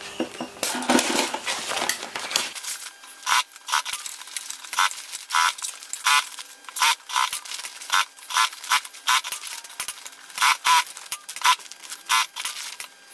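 Industrial flatbed sewing machine stitching in many short runs, one or two a second, each a quick burst of rapid needle ticking, as thick fleece is turned and fed through to sew on the bottom panel. Fabric rustles as it is handled during the first couple of seconds.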